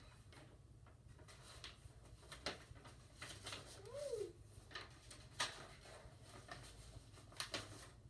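Soft paper rustling and light taps of cards and envelopes being handled, with a few sharper taps. About four seconds in comes one short squeak that rises and then falls.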